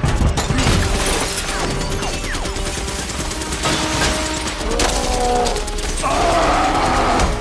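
Action-film battle sound: rapid gunfire from a jet's cannon, with rounds striking and sparking off a target and debris shattering, mixed with orchestral score. The fire is densest at the start and thins out, and a loud swell rises near the end.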